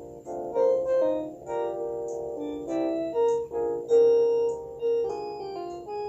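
Panasonic cordless phone playing a polyphonic ringtone through its small speaker: a fast electronic keyboard-like melody of short notes and chords.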